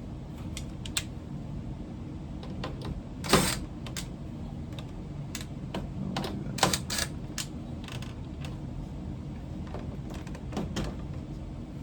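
Scattered clicks and clacks of plastic dryer console parts being handled and pressed together while being seated on their clips, with the loudest clack about three and a half seconds in and a quick cluster of clicks near the middle, over a low steady hum.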